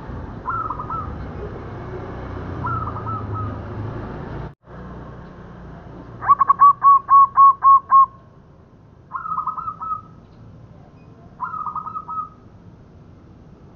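Zebra dove (perkutut) cooing: short rolling coo phrases every two to three seconds, with a run of about eight loud, evenly spaced coos about halfway through.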